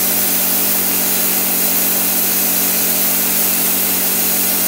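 Tenya Cut60C plasma cutter cutting through 12 mm metal plate: the arc and air jet make a steady hiss over a constant low hum.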